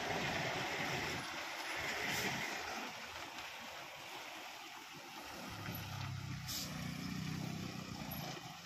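Tata 4018 tractor-trailer's diesel engine running under load as the loaded truck drives past and pulls away around a bend, with tyre noise on the dirt road. A deeper engine rumble swells in the second half, and there are two brief hisses.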